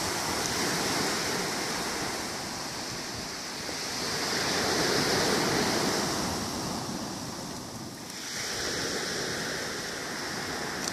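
Sea surf washing ashore, a steady rush of breaking waves that swells to its loudest about five seconds in and ebbs near eight seconds before building again.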